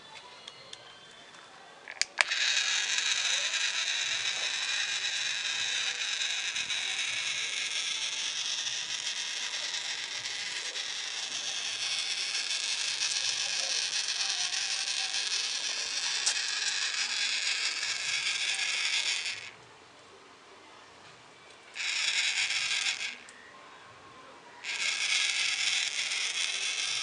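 Small yellow plastic-geared DC motor of a solar toy car running steadily as it drives the wheels, starting after a click about two seconds in. It cuts out suddenly after about seventeen seconds, then runs again in two short spells near the end.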